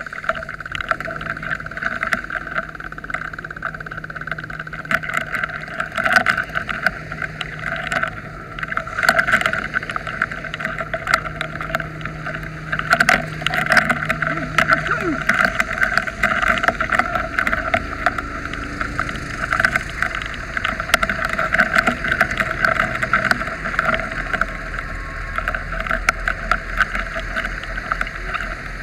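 Water spraying hard from a fire hose, a steady hissing rush with crackling droplets, over the low hum of a fire engine running. The engine note shifts about halfway through.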